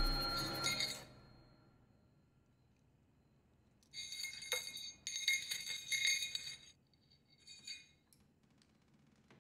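A held tone from the film's score fades out in the first second. After a few seconds of quiet, bright chiming tinkles come in clusters for about three seconds, with one more short cluster near the end.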